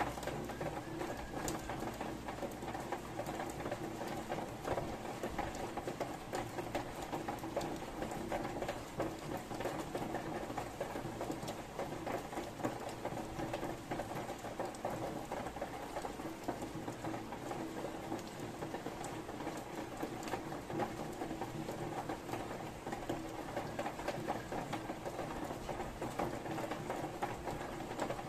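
Steady rain falling, a dense, even pattering of drops with no thunder.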